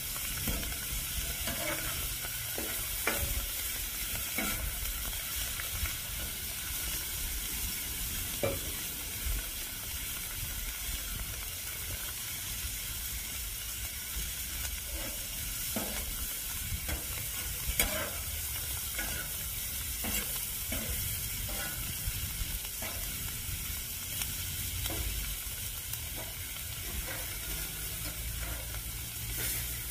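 Shrimp sizzling in butter on a flat-top griddle, with a spatula scraping and tapping on the griddle now and then; one sharp tap a little past halfway.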